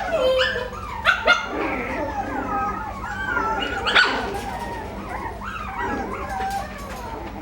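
A dog whining and whimpering, a continual high, wavering cry broken by a few short sharp yips, about a second in and again near four seconds.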